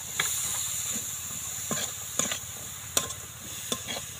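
Vegetables frying in a metal wok with a steady sizzle while a metal spatula stirs the pea and grated-carrot filling, scraping and knocking against the pan about six times.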